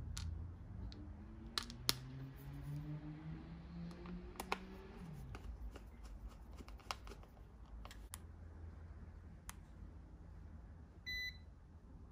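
Scattered light clicks and knocks of a small Phillips screwdriver and a plastic battery cover being worked on the back of a handheld digital multimeter. Near the end comes one short electronic beep as the Kaiweets ST500Y multimeter powers on.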